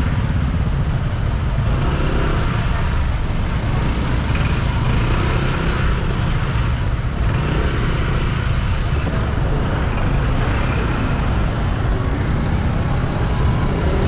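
Road traffic noise from motor scooters and cars moving slowly in dense traffic, a steady low rumble.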